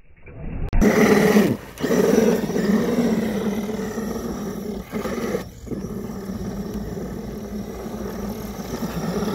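Electric motor and geared drivetrain of a Traxxas E-Revo RC monster truck whining under throttle as it drives through snow, easing off briefly twice before running on steadily.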